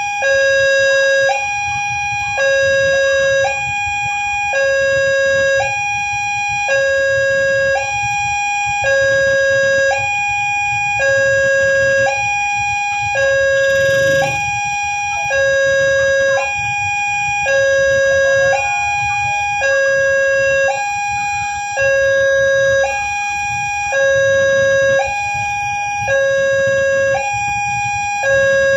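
Railway level-crossing electronic warning alarm sounding an alternating two-tone signal, a higher and a lower tone taking turns, each held just under a second. It is the warning that a train is approaching and the crossing is closed.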